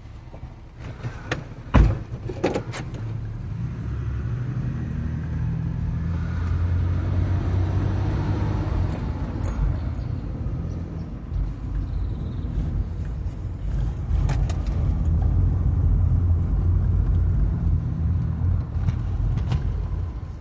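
A few sharp clicks and knocks, the loudest about two seconds in, then a car engine running with a steady low rumble.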